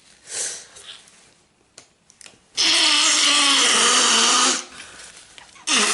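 A person's loud, drawn-out, breathy vocal outburst during a sneezing fit, lasting about two seconds from about halfway in. It comes after a short sharp breath and a few faint clicks, and another outburst begins right at the end.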